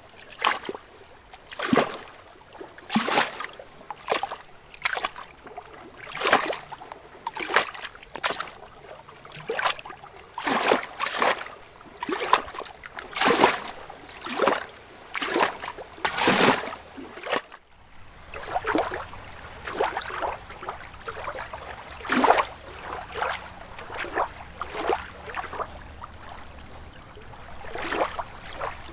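Lake water lapping in small rhythmic splashes, about one a second. After a brief break about two-thirds of the way through, the lapping goes on softer and less regular.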